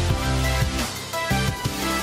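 Background music: a track with a strong bass line and held melodic notes.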